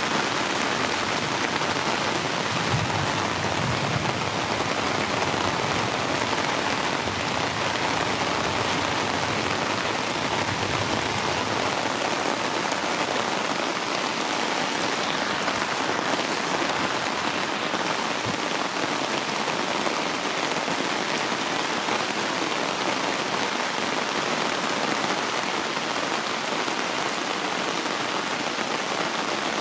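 Heavy rain falling steadily, splashing on wet concrete.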